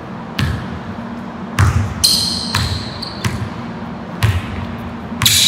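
A basketball dribbled on an indoor gym floor, about six irregular bounces, each echoing in the hall. A sharp sneaker squeak comes about two seconds in and lasts about a second.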